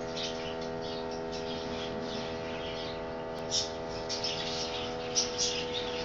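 Small aviary finches chirping: many short, high chirps scattered irregularly, over a steady low hum.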